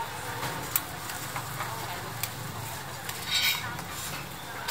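Metal spatula clicking and scraping on a flat hot griddle as small filled pancakes are rolled up, with a sharp tick about a second in and a brief louder scrape about three and a half seconds in, over steady street background noise.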